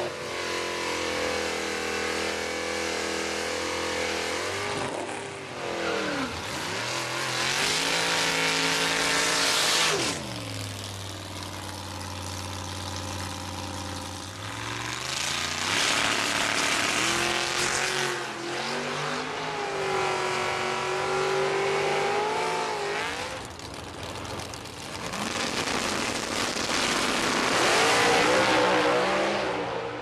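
Vintage V8 muscle-car drag racers at the starting line: engines idling, revving in rising and falling sweeps, and going to full throttle as cars launch down the strip, several times over.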